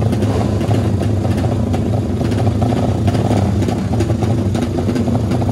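Engine of a 300 cc-class Honda drag-race motorcycle idling steadily and loudly at the start line, with no revving.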